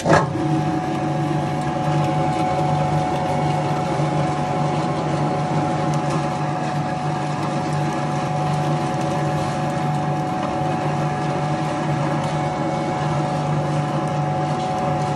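Electric nut-butter grinder switched on, its motor starting abruptly and then running steadily with a constant hum as it grinds nuts and pushes out a coarse paste.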